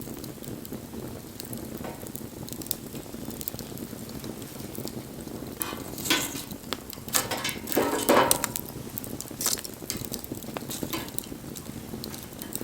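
Wood fire burning with a steady hiss and scattered sharp crackles and pops. About six seconds in there is a louder stretch of crackling that peaks a little after eight seconds.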